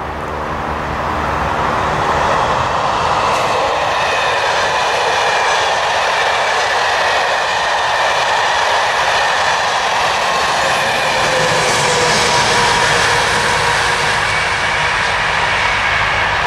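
Passenger train of Corail coaches rolling past: a steady rumble and hiss of wheels on rail that builds over the first couple of seconds and then holds.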